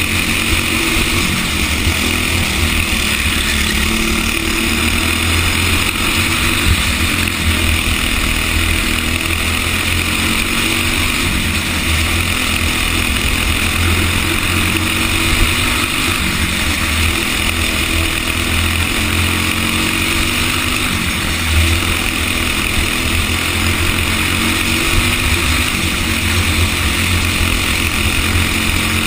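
Racing kart engine running hard at racing speed, heard from the kart itself, its pitch swinging slowly up and down through the turns.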